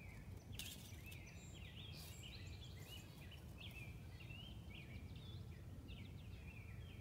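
Faint birdsong: songbirds singing a running series of short, quick chirping notes over a low outdoor rumble, with a couple of soft rustles near the start.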